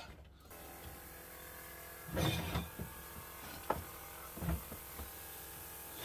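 New electric fuel lift pump on a marine diesel generator switched on about half a second in, running with a steady hum as it pushes fuel through the cracked-open injector lines to bleed out air. A few knocks and clunks of handling sound over it, the loudest just after two seconds.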